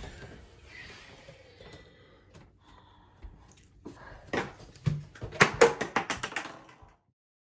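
Faint rustling, then a quick run of sharp clicks and knocks for about two seconds, loudest midway through, before the sound cuts off suddenly to silence.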